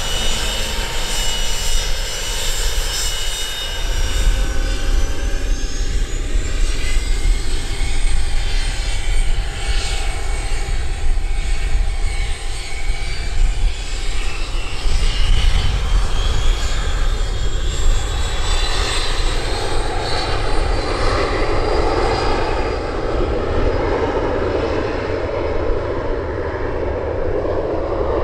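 IAI Gulfstream G150 business jet's twin turbofans running up for take-off: a deep rumble swells about four seconds in, with a whine rising steadily in pitch over it. In the second half the sound turns to a broader jet rush as the aircraft rolls and climbs away.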